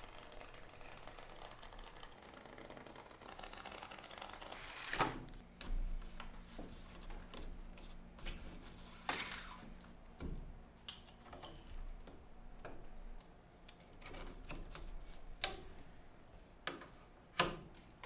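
Lacing a kayak's fabric skin onto the wooden cockpit coaming by hand: cord drawn through the fabric and pulled tight with a small wooden stick, giving irregular small taps, clicks and scrapes of wood and cord, with a few sharper clicks.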